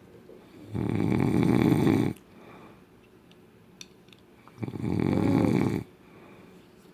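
A man snoring loudly in his sleep: two long, rough snores, each over a second, about four seconds apart.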